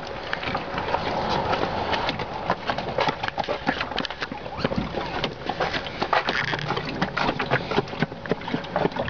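Footsteps on a dry dirt trail, with many irregular light knocks and rattles from a canoe being carried overhead.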